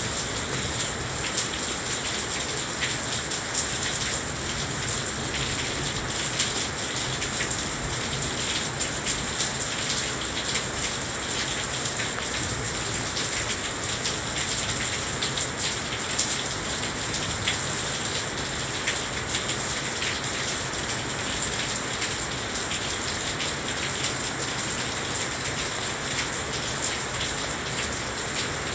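Heavy rain falling steadily, a dense even hiss with many sharp individual drop hits close by on the balcony.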